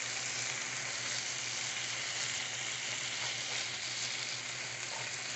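Rib eye steak frying in a hot pan: a steady sizzle.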